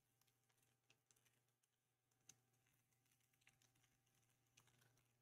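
Near silence, with a few faint clicks.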